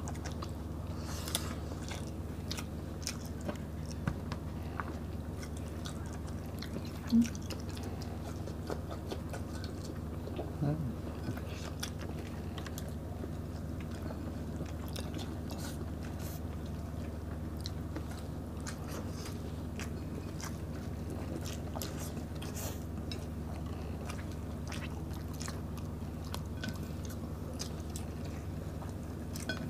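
Close-up eating sounds of smoked fish, rice and boiled vegetables eaten by hand: wet chewing with many small mouth clicks, over a steady low room hum. A short vocal hum comes about 7 seconds in and again about 11 seconds in.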